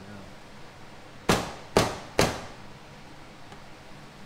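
Three sharp smacks about half a second apart, starting about a second in: a hand striking the rear diffuser to seat it onto the Dodge Charger's rear bumper.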